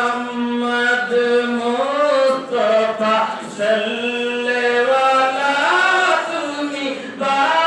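A man chanting a devotional melody solo into a microphone, in long held notes that glide up and down with short breaks between phrases.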